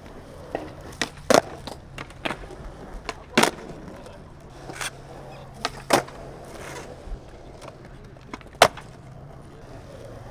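Skateboard on smooth concrete: a series of sharp wooden clacks as the board is popped and landed during a nollie backside 180 attempt, the loudest a little past the middle. From about a third of the way in there is the steady low rumble of the wheels rolling.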